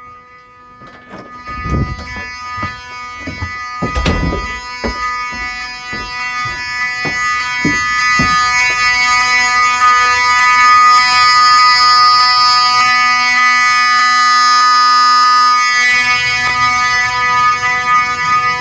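Wheelock 7002T 12-volt horn strobe sounding its horn: a steady, pitched alarm tone that grows louder over the first several seconds. Irregular clicks come through it in the first eight seconds or so.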